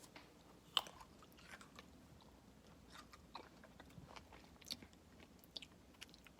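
Faint close-up chewing: scattered soft clicks and small crunches of food being bitten and chewed, with one sharper click about a second in.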